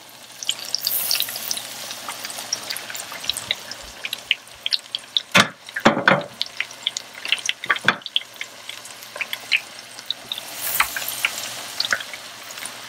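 Battered shrimp deep-frying in hot oil in an electric deep fryer: steady crackling and popping, with louder surges of sizzle about a second in and again near the end. A few sharp knocks around the middle.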